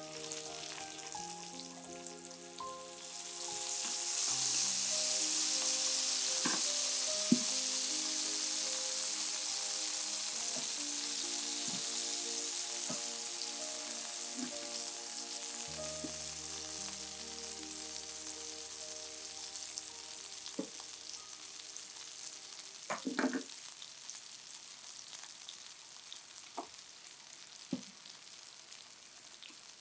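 Onions sizzling in butter in a frying pan. The sizzle flares up sharply a few seconds in as a sauce is spooned into the hot fat, then gradually dies down. A few clinks of a metal spoon against the pan come in the last third.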